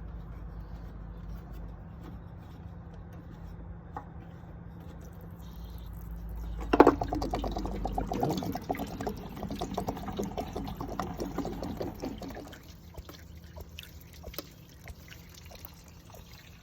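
Water gushing and splashing out of an RV water heater's opened drain as the tank is emptied. It starts suddenly about seven seconds in, after a low steady hum, and dies down after about five seconds.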